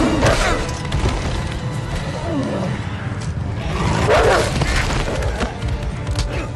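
Battle scene soundtrack: an orchestral score under snarling, roaring cries from wargs and the noise of fighting. The loudest roar comes about four seconds in, with others at the start and about two and a half seconds in.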